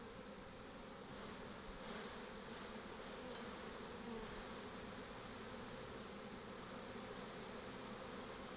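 Steady buzzing hum of a mass of Italian honey bees being installed in a hive, growing a little louder about a second in.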